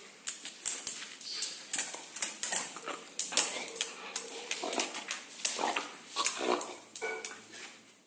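Dog snoring: a run of short, noisy snorting breaths, irregular at roughly two or three a second.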